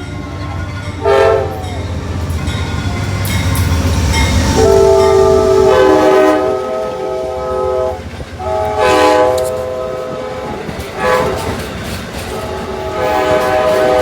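Train's multi-chime air horn sounding a chord over the low rumble of the train: a short toot, then two long blasts, a short one and a final long one. The long-long-short-long sequence is the standard warning signal for a grade crossing.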